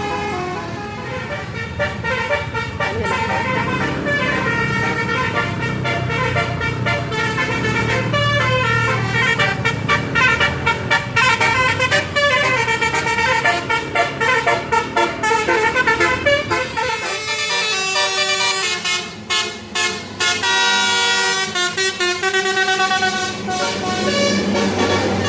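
Basuri telolet multi-tone air horn on a tour bus playing a melody of short notes that change pitch quickly, over the rumble of the bus.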